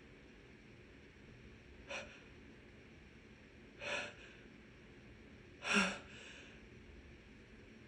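Three sharp, noisy intakes of breath about two seconds apart, each louder than the last: a person with a head cold building up to a sneeze that has not yet come.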